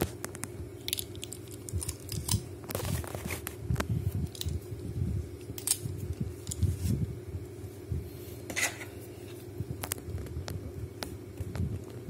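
Scattered light clicks, taps and scrapes of a metal dial combination padlock being picked up and turned over in the hands, over a steady low hum.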